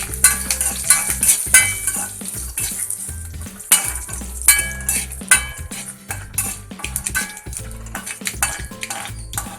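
A spoon stirring a tempering of mustard seeds and dried red chillies frying in ghee in a kadai, with repeated clinks and scrapes against the pan over a steady sizzle.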